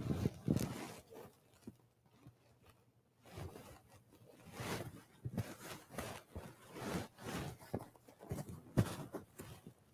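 Soft, irregular rustling and scraping with a few light knocks, the sounds of a priest moving at an altar and handling things there: cloth brushing and small objects set down.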